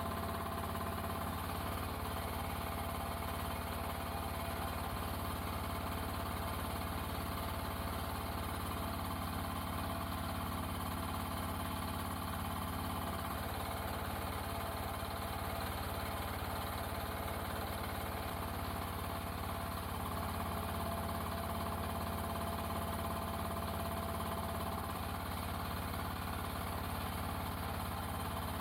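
NM-E08 mini excavator engine running steadily with its hydraulics working, the note shifting a few times as the boom and stick are moved to test new hose routing.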